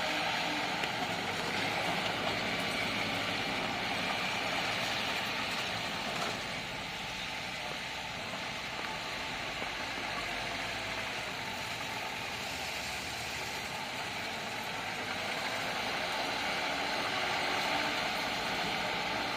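Bulldozer's diesel engine running steadily under work, easing off a little about six seconds in and building again near the end.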